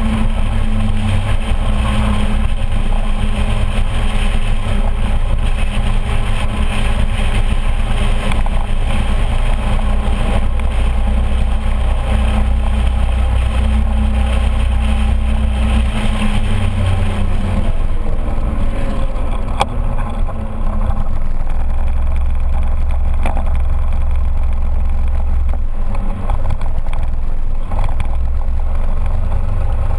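Motor scooter engine running as it rides along, with wind and road noise, heard close from a camera mounted on the scooter. The engine note falls for a few seconds a little past halfway.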